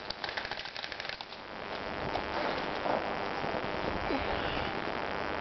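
Airsoft gun firing a rapid full-auto burst, a quick even run of clicks that stops about a second in. A steady rustling noise follows.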